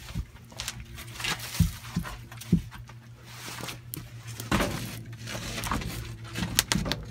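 Split firewood logs knocking and scraping as they are set by hand into the firebox of a Woodmaster 4400 outdoor wood boiler, with a steady low hum underneath.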